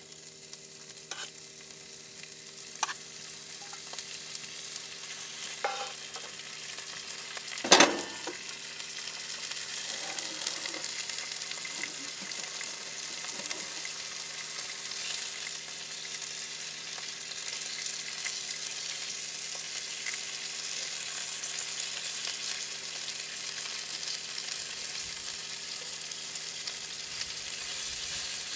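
Homemade bacon sizzling and frying in a pan, the sizzle growing louder over the first ten seconds or so. Three light clicks come first, then one loud knock about eight seconds in.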